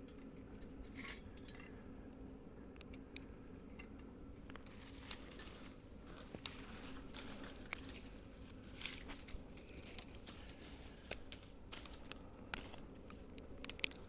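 Small dry twigs being snapped by hand: scattered sharp snaps and cracks, sparse at first and coming more often after about five seconds, over a faint steady low hum.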